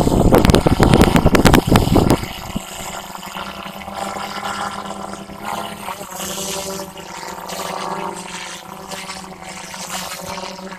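DJI Phantom 3 Pro quadcopter's four propellers buzzing as it hovers close by. A loud, gusty rush for about the first two seconds, then a steadier, quieter buzz with several steady tones.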